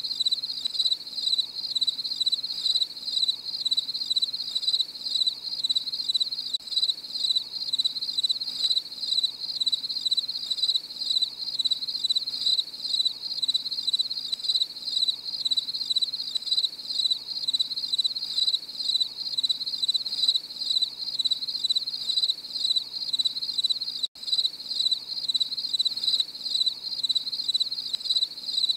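Crickets chirping in a steady, repeating pulse, with a split-second break near the end.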